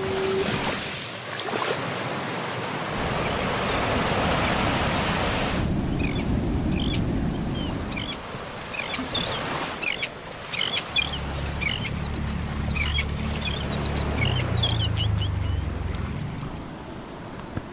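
Ocean waves breaking and washing on a shore, cutting off abruptly about six seconds in to a calmer stretch of water with many short bird chirps. A low droning hum joins for several seconds near the middle, stepping up in pitch before it fades.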